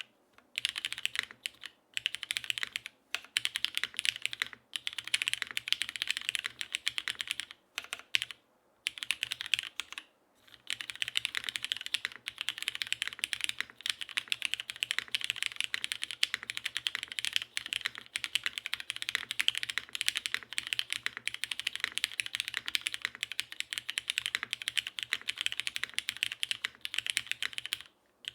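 Fast typing on a Diversity 80% mechanical keyboard with Cherry HG Black linear switches and GMK keycaps, on a top-mounted aluminium half plate with no foam dampening. The key clicks come in a dense, even stream, with short pauses a few times in the first ten seconds and then continuous typing.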